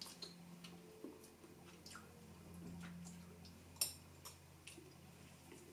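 A few faint clicks and taps as a metal spoon is handled and put in the mouth for a taste, the clearest near four seconds in, over a low steady hum.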